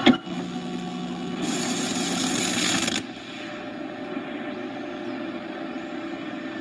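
Dual-deck VCR clicking into play and running a videotape: a click, then a steady mechanical whir and hiss with a low hum. The hiss is louder for the first few seconds, then settles.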